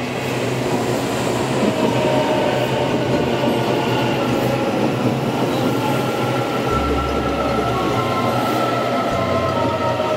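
Taiwan Railways EMU800 electric commuter train pulling into the platform close by: a loud, steady rumble of wheels on rail, with the motors' thin whine falling gently in pitch as it slows.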